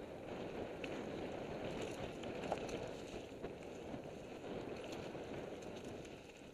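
Mountain bike riding fast down a dirt singletrack: steady tyre noise on the trail, with scattered rattles and knocks from the bike, the sharpest about two and a half seconds in, and wind rushing over a helmet-mounted camera microphone.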